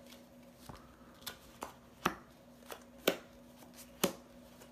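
Playing cards being dealt and flipped down onto a cloth-covered table: a string of about seven short, sharp snaps, the loudest coming roughly once a second.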